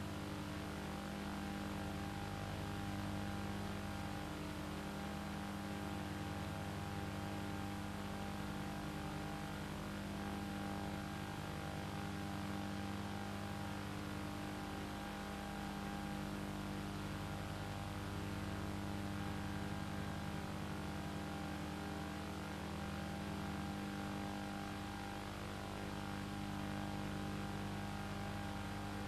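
A steady mechanical hum with several fixed tones and a faint flutter, unchanging in level.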